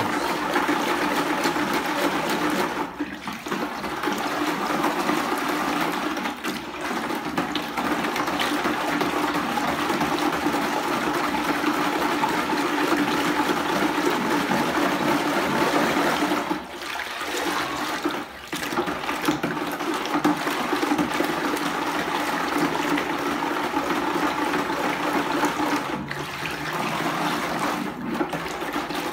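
Coconut milk and sugar sloshing and swirling in a plastic bucket as it is stirred round by hand with a wire whisk on a wooden handle, a steady churning that breaks off briefly a few times. The stirring is meant to dissolve the sugar before the flour is added.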